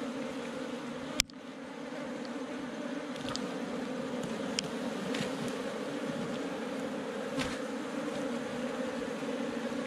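Honeybees buzzing steadily around their nest in the ground, disturbed by digging. A single sharp click about a second in, and a few faint ticks.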